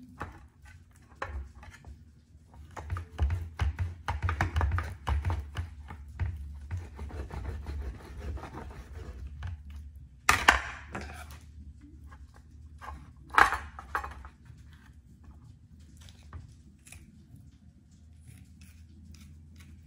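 Rack of lamb being cut into chops on a metal baking tray: a knife sawing and scraping through meat and against the tray for several seconds, then two sharp clatters on the tray, followed by lighter clicks of kitchen shears.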